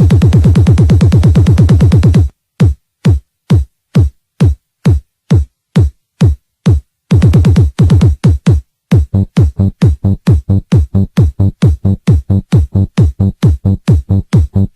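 Electronic dance music with a drum-machine beat: a dense, fast-pulsing bass until about two seconds in, then a bare kick drum alone about twice a second, each hit dropping in pitch. The fuller beat comes back from around nine seconds.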